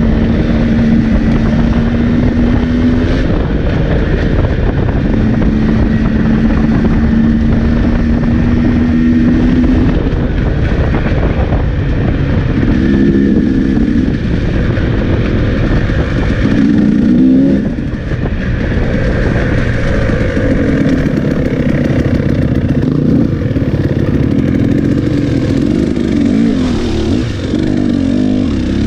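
Off-road motorcycle engine running under a rider. For about the first ten seconds it holds a steady pitch, then rises and falls repeatedly as the throttle is worked.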